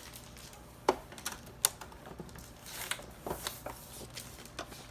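Scattered light clicks and taps of small hard objects being handled, with two sharper clicks in the first two seconds and a run of lighter ones later: makeup storage and its contents being unpacked and arranged by hand.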